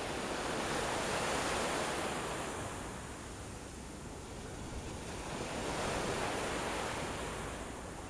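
Surf washing up a sandy beach: an even hiss of breaking foam that swells about a second in, ebbs, and swells again around six seconds in.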